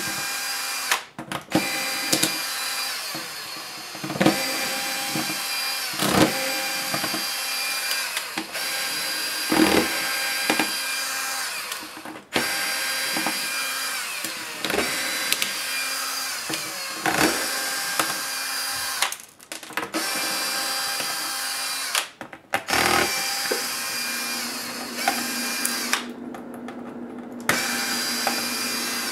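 Electric screwdriver running in repeated stretches of a few seconds, stopping and starting as it backs out the laptop's screws one after another, with short clicks between runs.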